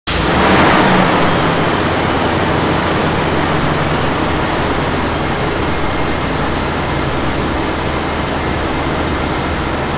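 Automatic transmission fluid pouring from a clear hose and splashing into a plastic drain container, over a steady engine idle. The splashing is loudest about half a second to a second in, then eases slightly.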